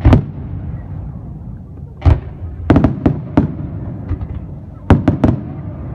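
Fireworks shells bursting overhead: sharp bangs in loose clusters, about eight in six seconds, over a low rolling rumble.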